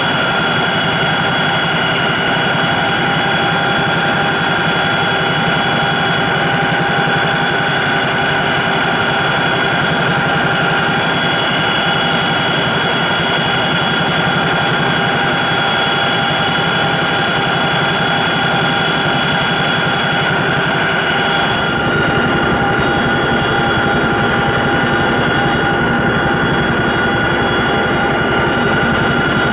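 Cabin noise of a CH-47J Chinook helicopter in flight: a steady high-pitched whine over a continuous heavy drone. About two-thirds of the way through, the sound shifts abruptly to a heavier, lower drone with less of the high whine.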